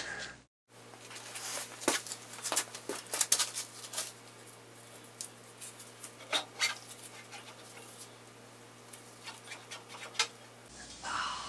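Irregular metallic clicks, knocks and scrapes of a long steel lathe lead screw being slid out lengthwise through its brackets on an old Vernon lathe, coming in clusters.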